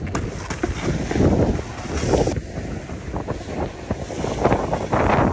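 Wind buffeting the microphone of a phone moving down a ski slope, an unsteady rushing that swells and fades, mixed with the hiss of a snowboard sliding over the snow.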